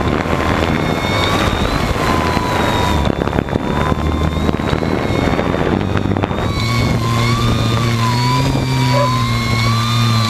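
Electric motors and propellers of a multirotor hexacopter whining steadily, heard close up, with a slowly wavering high pitch. Wind buffets the microphone heavily until about two-thirds of the way through, when it eases and a steadier low hum comes through.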